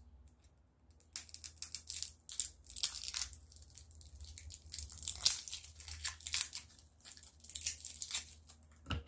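Thin plastic wrapping crinkling and tearing as it is picked off a battery by hand: irregular, dense crackling that starts about a second in and runs on in quick bursts.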